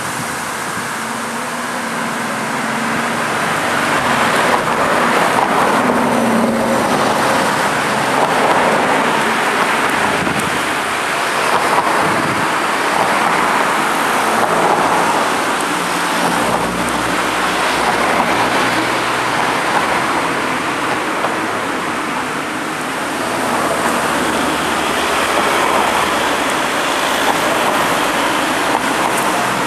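Road traffic passing close by: tyre and engine noise swelling and easing as cars drive past, with a van going by near the end.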